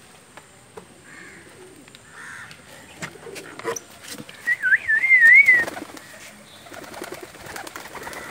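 A loud warbling whistle, wavering up and down in pitch for about a second midway, with scattered light clicks and knocks around it as pigeons are let out of a wooden loft.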